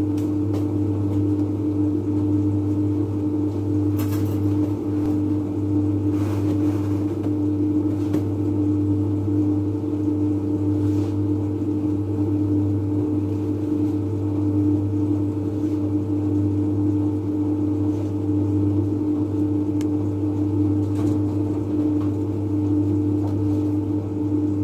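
Steady mechanical hum of bakery machinery: a loud, unchanging low drone with a few faint knocks of work at the bench.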